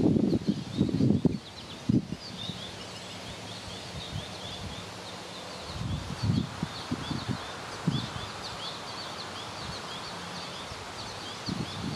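Outdoor garden ambience: a steady chatter of short, high chirps, with low rumbles of wind buffeting the microphone in the first second or so, again around six to eight seconds in, and near the end.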